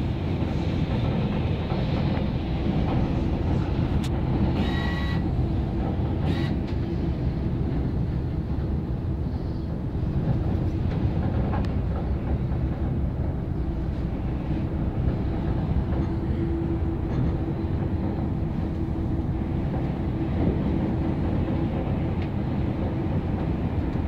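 Aerial tram cabin running down its cables: a steady low rumble with a constant hum, and a short high tone about five seconds in.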